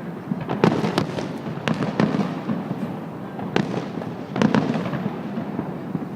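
Fireworks display going off overhead: a continuous, dense run of crackling with many sharp bangs, several of them loud and roughly a second apart.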